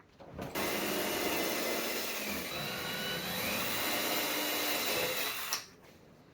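Electric drill running for about five seconds while boring a pilot hole, its motor whine shifting in pitch under load, then stopping abruptly.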